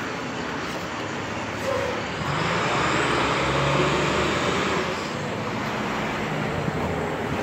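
Street traffic noise with a rear-loader garbage truck's engine running as the truck drives off. The engine and road noise swell for a few seconds in the middle, then ease back.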